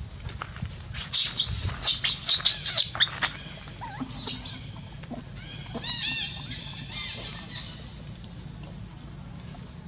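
Baby long-tailed macaque shrieking: loud, shrill screams in a rapid run about a second in and again briefly around four seconds, followed by a quieter series of quick chirps.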